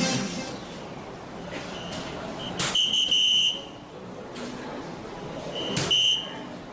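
Two soft-tip darts hit an electronic dartboard about three seconds apart, each hit a sharp click followed by the board's short electronic beep as it registers the score, first a triple 16 and then a single 16.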